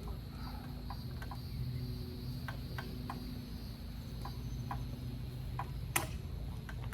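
Steady high-pitched insect chirring over a low steady hum, with scattered light clicks and one sharper click about six seconds in.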